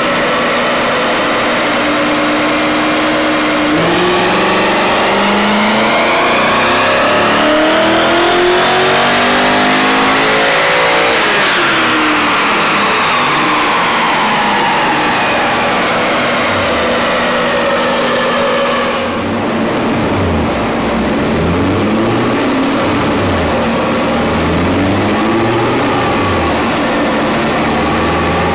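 BMW E39 M5's S62 V8 with a header-back exhaust, run on a chassis dyno. The revs climb steadily for about seven seconds, then fall away for several seconds as it coasts down. From about two-thirds of the way in, the throttle is blipped again and again, the revs rising and dropping roughly every second and a half.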